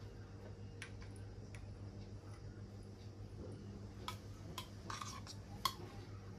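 A steel spoon clinking lightly against glass and dishware while scooping soaked basil seeds, about six short taps, the loudest near the end, over a steady low electrical hum.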